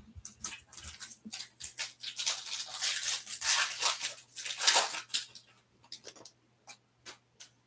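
Foil wrapper of a Topps Stadium Club Chrome baseball card pack crinkling and tearing as the pack is ripped open by hand. A few light clicks follow near the end as the cards are handled.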